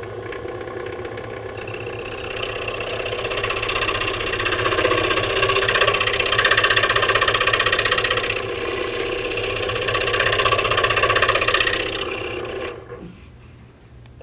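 Scroll saw running with its blade cutting through a small wooden board along a dovetail line, turning in an enlarged cut to come straight across for a crisp corner. The cutting starts about a second and a half in, and the saw stops about a second before the end.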